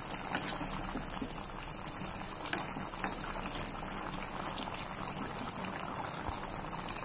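Thick chicken-and-potato curry simmering in a pan with a steady bubbling hiss. A metal spatula stirs through it and clicks against the pan a few times, just after the start and around two and a half and three seconds in.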